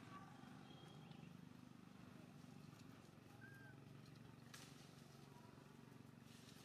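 Near silence: faint outdoor ambience with a steady low hum, a brief faint squeak about three and a half seconds in, and a faint click about a second later.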